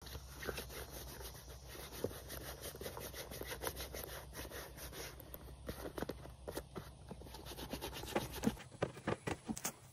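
Hands handling a leather ankle boot: a run of short, irregular rubbing and scratching noises, over a low steady rumble that stops near the end.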